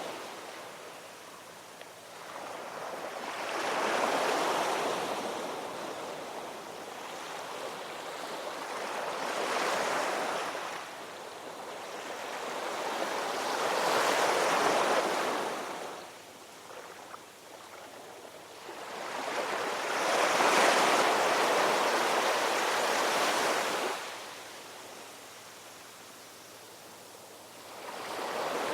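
Ocean waves breaking and washing in, the surf swelling and fading about every five seconds, with one longer surge in the second half.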